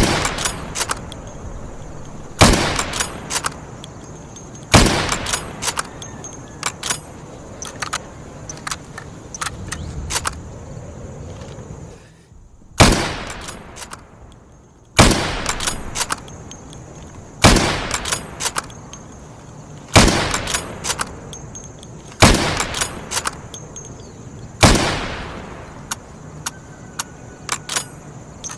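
Mosin-Nagant M1891/30 bolt-action rifle firing nine shots, roughly two and a half seconds apart with a longer pause after the third, each shot followed by a few metallic clicks of the bolt being worked.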